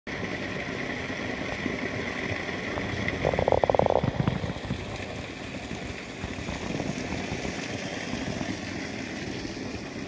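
Water spilling over a small stone outlet and splashing into a shallow stream bed, a steady rushing. About three and a half seconds in, a brief rapid rattle stands out as the loudest moment.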